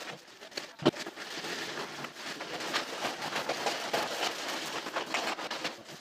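Ice cubes clattering and rattling in a steel tray as they are packed by hand around a plastic-bagged carcass, with one sharp knock just under a second in.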